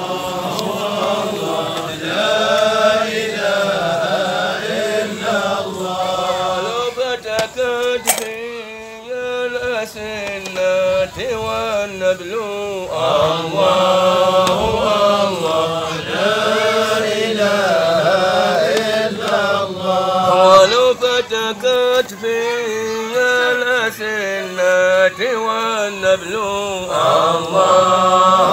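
Men's voices chanting a Sufi hadra dhikr: a slow, melodic chant that goes on without a break.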